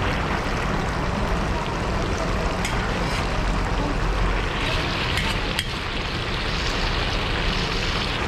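Zirvak of carrots and chickpeas bubbling and sizzling in a large plov kazan over a fire, under a steady low rumble, with a few knocks of the skimmer against the pot; the hiss grows brighter about halfway through.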